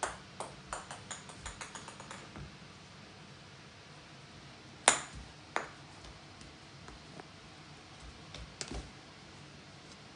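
A small plastic ball bouncing on a hardwood floor: one hard bounce, then about ten quicker, lighter bounces that die away over two seconds. The ball clacks sharply twice more about five seconds in, with a few softer knocks near the end.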